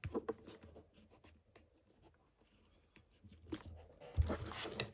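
Fingertips rubbing a sticker down onto a clear plastic Blu-ray case, with a few light clicks at first, then louder rubbing and handling of the case near the end, including a dull thump about four seconds in.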